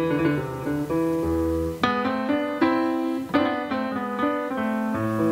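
Steinway grand piano played solo: a slow series of full chords, each struck and left to ring before the next.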